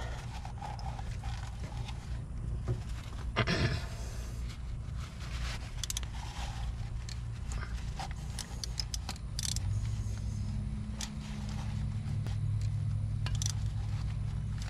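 Faint scraping and small clicks of hand work, wiping excess sealing compound out of the injector cup bores, over a steady low engine-like drone that grows louder about ten seconds in.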